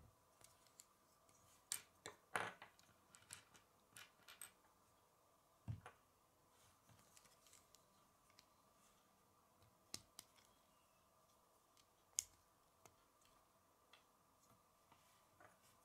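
Small plastic Lego pieces clicking and snapping as they are handled and pressed together, with a quick cluster of clicks about two seconds in and scattered single clicks after. One click near six seconds in has a dull knock, and a sharp snap comes about twelve seconds in, over a faint steady hum.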